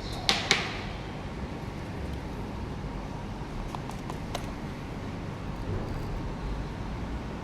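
Two sharp metallic clinks about a quarter second apart near the start, as a metal portafilter basket is handled, then a few light ticks about four seconds in, over a steady low rumble.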